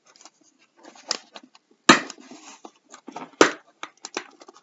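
Cardboard packaging of an action-figure box being handled and pulled open: scattered rustling and scraping, with two sharp snaps or knocks, the louder one about two seconds in and another about a second and a half later.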